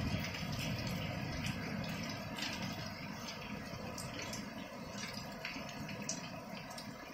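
Rain falling steadily on a wet concrete rooftop, an even hiss broken by occasional sharper ticks of single drops.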